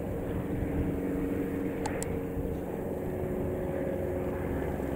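Engines of several First World War–type fighter biplanes droning steadily as they fly overhead together, with two short faint clicks about two seconds in.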